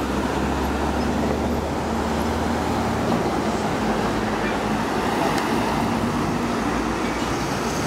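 Street traffic: cars driving past with steady engine and tyre noise. A low engine hum is strongest for the first three seconds or so, then eases.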